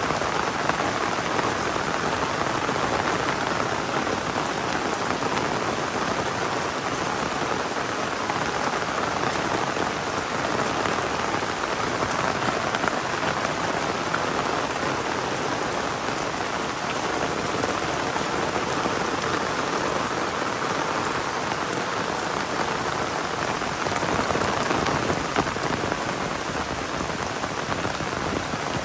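Torrential rain pouring down steadily, a dense, even hiss with no letup.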